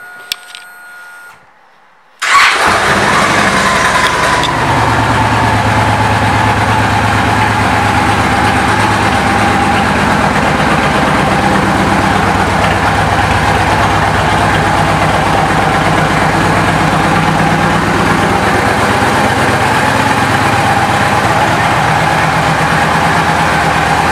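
A 2010 Victory Cross Roads' V-twin engine starts about two seconds in and then idles steadily. Its pitch eases down a little in the first few seconds after it catches.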